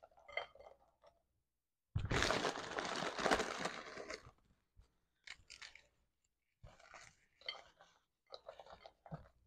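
Crisp spiced cookies snapped and crumbled by hand, in short bursts of crunching and cracking. About two seconds in, a louder rustle of the plastic cookie package lasts a couple of seconds as more cookies are pulled out.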